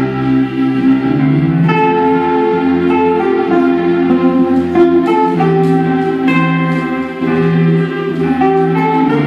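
A student wind band of clarinets and saxophones playing a sustained chordal passage, the held chords shifting every second or two, with a short drop in loudness about seven seconds in.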